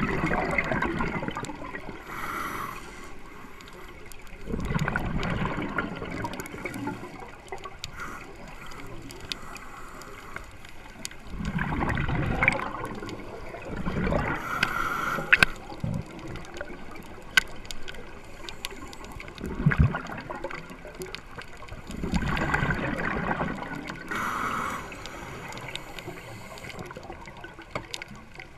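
Scuba breathing underwater: a gurgling rush of exhaled bubbles from a regulator every few seconds, with quieter hiss and a few sharp clicks between.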